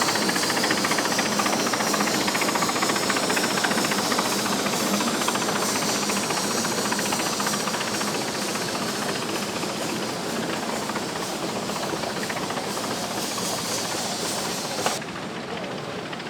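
Turn-of-the-20th-century sawmill machinery running steadily, a loud hissing, rattling din with a fast, even rhythm. Near the end the hissing top end drops away suddenly.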